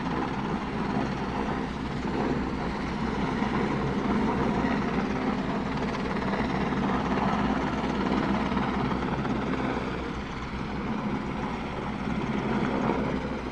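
CH-149 Cormorant search-and-rescue helicopter hovering, its rotors and engines making a steady drone.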